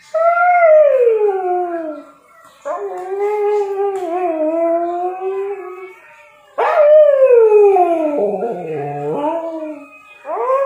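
A sleepy Siberian husky howling: three long howls, the first and third sliding down in pitch and the middle one held fairly level, with a fourth just starting at the end.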